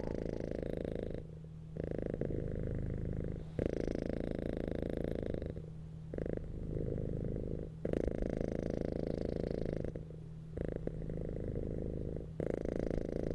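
Domestic cat purring, a steady low rumble that swells in stretches of about two seconds with brief dips between them.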